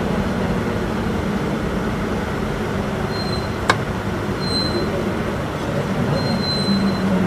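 Isuzu Erga city bus (2DG-LV290N2, torque-converter automatic) heard from inside, its diesel engine and road noise making a steady drone as it rolls at low speed. A single sharp click comes about halfway through, and three brief faint high-pitched squeaks sound during the second half.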